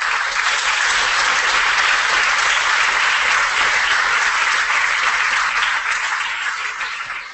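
Audience applauding, holding steady and then dying away near the end.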